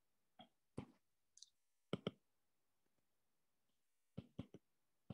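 Taps on a tablet touchscreen while keys are pressed on an on-screen graphing calculator: about eight short, sharp taps at uneven spacing, with a pause of about two seconds in the middle.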